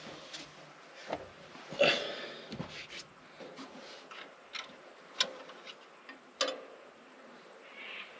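Scattered knocks and sharp clicks from something being handled, the loudest a little under two seconds in, then single sharp clicks about five and six and a half seconds in.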